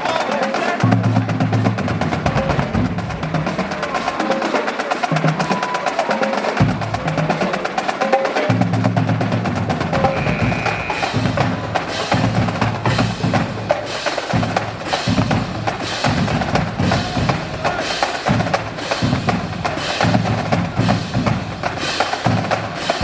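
High school marching drumline playing: rapid snare and drum rolls over pitched bass drum hits, with sharp accented strokes falling in a steady rhythm through the second half.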